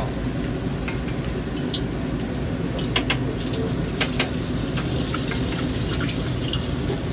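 Stir-frying in a wok: a steady rushing sizzle, with a few sharp metal clinks of the spatula against the wok about three and four seconds in.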